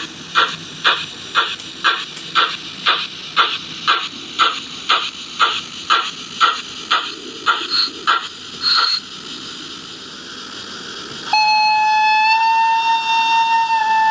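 Steam locomotive chuffing evenly at about two beats a second, the sound given to an H0 model of a class 64 tank engine. The chuffing stops about nine seconds in, and after a short hiss a long steam whistle of several tones sounds to the end.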